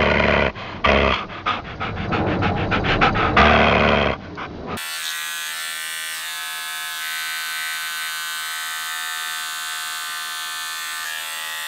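A loud, choppy burst of dog sounds with rapid pulses, about five seconds long. Then a handheld electric beard trimmer buzzing steadily with an even, high hum.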